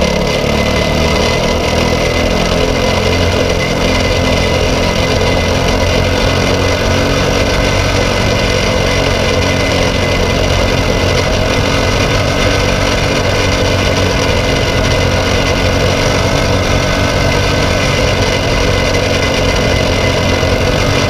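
Briggs & Stratton LO206 single-cylinder four-stroke kart engine running, heard onboard the kart. The engine note shifts over the first few seconds, then holds steady.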